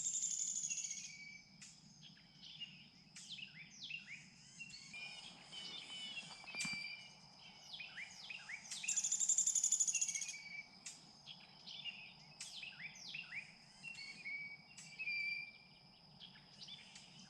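Songbirds chirping with many short down-slurred notes, and two louder high trills of about a second and a half each, one at the start and one about nine seconds in, over a steady high-pitched insect drone.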